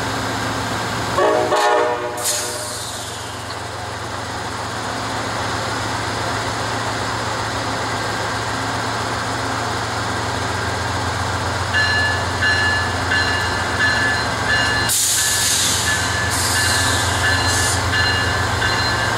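Amtrak diesel locomotive of the Southwest Chief running with a steady engine drone. About twelve seconds in, a high, evenly pulsing ring starts, the locomotive's bell signalling departure, and a loud burst of air hiss comes a few seconds later.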